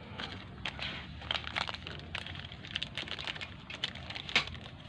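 Irregular light clicks and ticks of small metal engine parts and hand tools being handled during a motorcycle cylinder-head rebuild, with a sharper click near the end.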